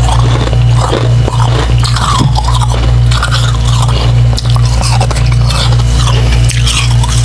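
Close-up biting and chewing of soft slushy ice, refrozen humidifier frost chunks dipped in water, with irregular wet crunching throughout. A steady low hum runs underneath.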